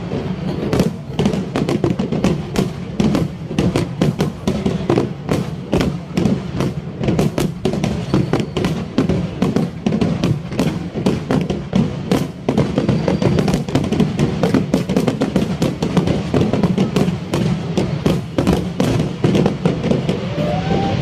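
Fireworks display going off in rapid succession, many bangs and crackles a second without a break. Music plays underneath.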